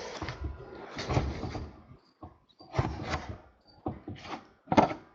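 A foil trading-card pack and its cards being handled: several short rustles and slides, each a fraction of a second.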